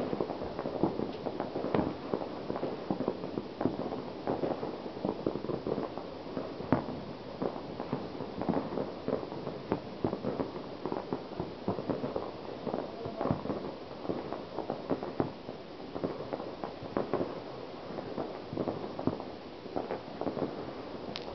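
Firecrackers and fireworks banging and popping irregularly, many small reports overlapping into a continuous crackle, with a few louder bangs, one about seven seconds in.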